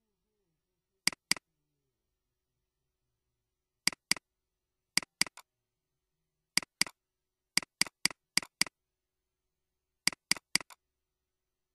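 Computer mouse button clicking, mostly as quick double-clicks to open folders, with a faster run of five clicks about two thirds of the way in and three more near the end; dead silence between the clicks.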